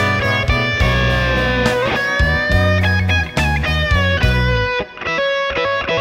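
Fender Telecaster electric guitar played through a Fractal Audio AX8, a slow country-blues instrumental melody of sustained single notes with string bends, over a steady bass line.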